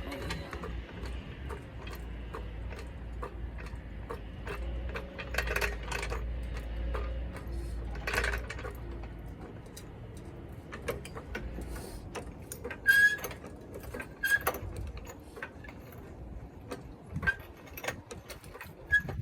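Scattered metal clinks and knocks of tools being handled, with two sharper, briefly ringing clinks about two-thirds of the way in. A low steady hum runs under the first half.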